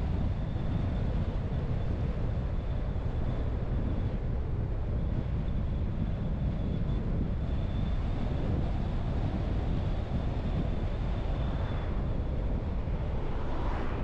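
A car driving along a road: steady low rumble of road and engine noise, with a thin high whine that fades out about twelve seconds in.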